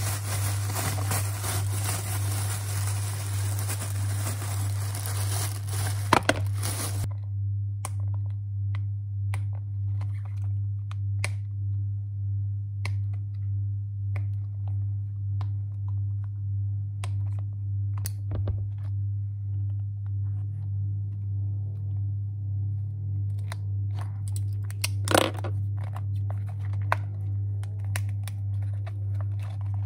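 Hands working open a cardboard COVID-19 antigen test kit box: scattered sharp clicks, crinkles and tearing of the packaging over a steady low hum. For about the first seven seconds a loud even hiss covers everything, then cuts off abruptly.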